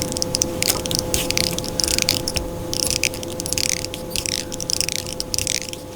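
Tying thread being wrapped around a jig's collar to bind a living-rubber skirt: a series of short, clicky rasping strokes about once a second, over a steady faint hum.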